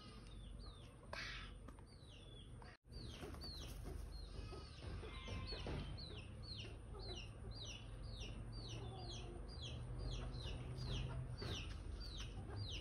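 Free-ranging yard chickens calling faintly: a long run of short, high peeps, each falling in pitch, about two or three a second, from about three seconds in.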